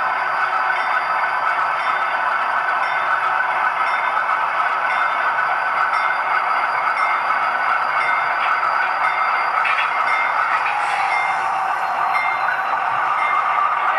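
LokSound sound decoder in a ScaleTrains HO scale GE C39-8 model diesel locomotive, playing its diesel engine sound steadily through the model's small speaker as the train moves slowly. Faint clicks from the model's wheels on the track come and go over it.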